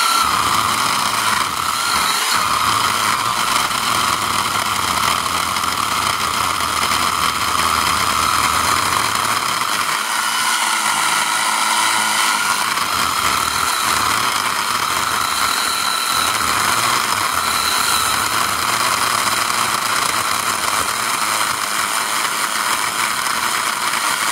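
Craftsman V20 10-inch cordless (20-volt battery) chainsaw running under load with a steady whine, its chain biting slowly into a very hard old hardwood stump, cutting, though not very much, 'like cutting through concrete'.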